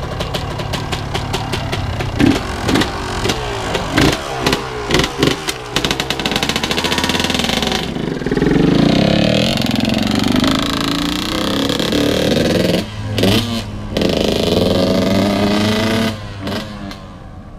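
Yamaha YZ125 two-stroke single-cylinder engine revved in quick blips about twice a second, then held at higher revs that rise and fall as the bike is ridden off, with a short break in the middle and a drop in level near the end as it moves away.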